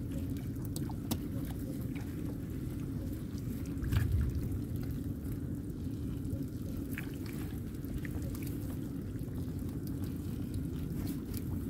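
Wet gill net being hauled aboard a small boat: water pouring and dripping off the mesh and a load of tamban sardines, with scattered light clicks over a steady low rumble. A dull thump about four seconds in.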